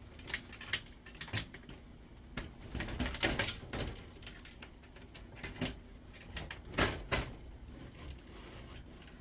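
Scattered clicks, clinks and knocks of induction hob parts and tools being handled on a workbench, with a short cluster of rattling about three seconds in.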